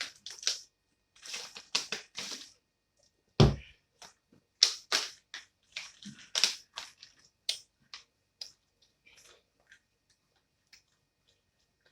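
Close-up chewing and crunching of crispy fried food, irregular crackly bites and mouth sounds, with one heavy thump about three and a half seconds in. The crunching thins out to a few faint clicks in the last few seconds.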